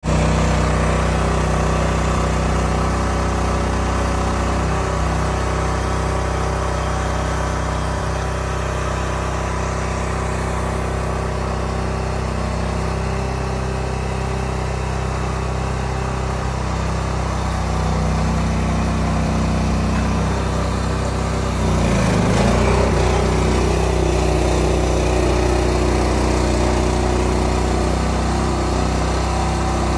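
Engine of a hydraulic knuckle-boom log loader running steadily, working harder and a little louder from about 22 s in as its grapple lifts a log.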